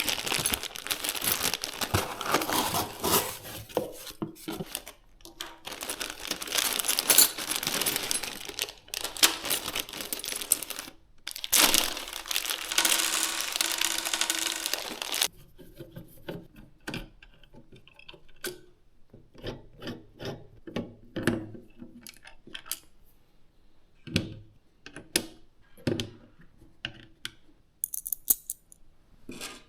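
Packaging rustling and rubbing for about fifteen seconds as PC components are unpacked and handled, then scattered light clicks and taps of small parts being handled and fitted.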